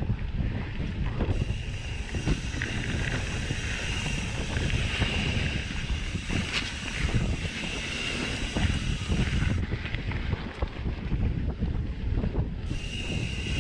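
Wind buffeting a mountain biker's helmet- or chest-mounted action-camera microphone while riding, mixed with Maxxis Aspen 2.4 tyres rolling over sandy gravel trail. A high steady hum runs through it, dropping out about ten seconds in and coming back near the end.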